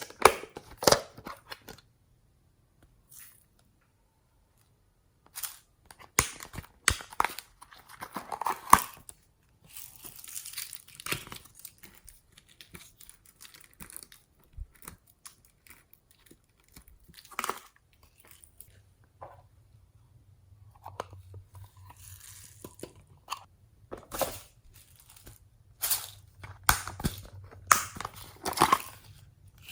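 Hands squishing, stretching and pressing glossy slime mixed with floam beads: irregular clusters of sticky crackles and crunches, with short pauses between them.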